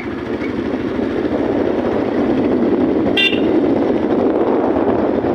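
Steady road and wind noise of a vehicle travelling on a wet road, with one short horn toot about three seconds in.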